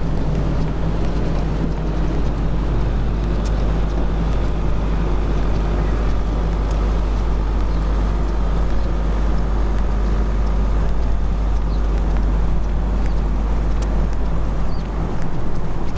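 Steady low engine rumble with a faint even hum and a haze of background noise.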